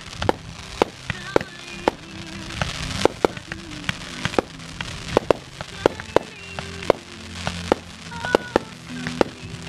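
Fireworks launching and bursting in quick succession: ground-fired comets and small aerial shells, a sharp bang about two or three times a second, with music playing underneath.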